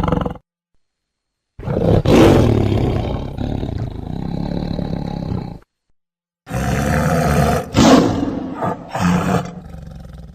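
Made-up Torvosaurus dinosaur roar sound effects. A long roar of about four seconds, loudest at its start, is followed after a short pause by several shorter roars and growls in quick succession.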